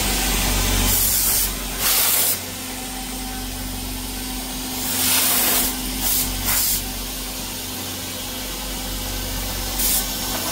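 Compressed air from a hand-held blow gun hissing in about six short bursts, over the steady hum of a CNC router spindle cutting the final contour pass in 6061 aluminium plate.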